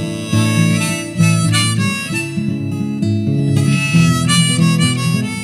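Harmonica playing a melody over strummed acoustic guitar, with no singing.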